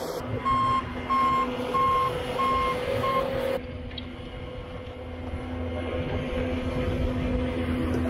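Bobcat skid-steer loader's backup alarm beeping five times, about one and a half beeps a second, over its steadily running engine. The beeping stops about three seconds in while the engine keeps running.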